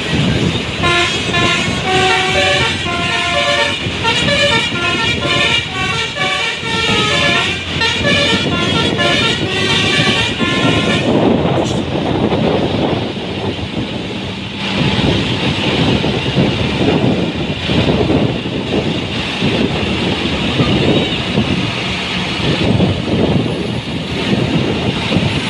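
Bus basuri horn, a multi-tone air horn, playing a tune of stepped notes for about ten seconds. It then stops, leaving the bus's engine and road noise as it rolls close by.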